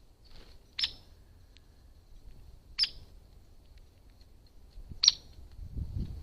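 A bird giving three short, sharp call notes, roughly two seconds apart, with a faint steady high hiss behind them. A low rumble comes in near the end.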